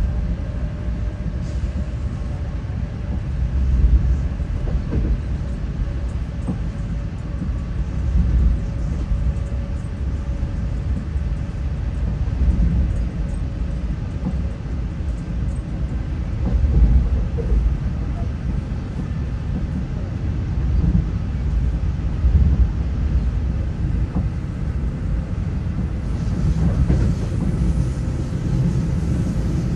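China Railway CR200J Fuxing train running: a steady low rumble of the wheels on the track, with a faint steady tone above it. A hiss rises near the end.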